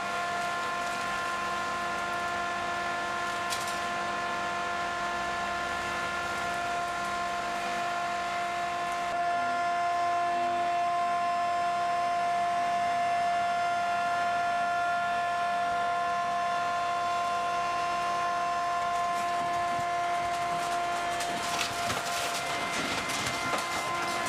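Hydraulic car baler running with a steady whine, which grows louder about nine seconds in as its hinged lids fold down onto the car. In the last few seconds there is crackling and crunching as the car body is crushed.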